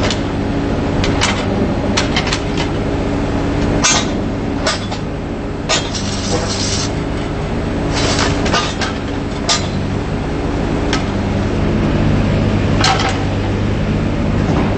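John Deere 17D mini excavator's diesel engine running steadily, with sharp metal clanks and knocks from the machine scattered throughout.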